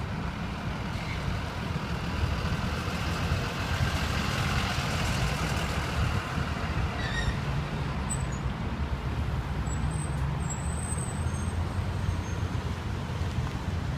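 A school bus driving past on the street: steady engine and tyre noise, a little louder about four to six seconds in.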